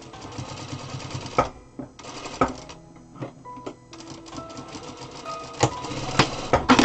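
Zoje industrial lockstitch sewing machine stitching in short stop-start runs, a fast even rattle of the needle and feed. Sharp clicks come between the runs.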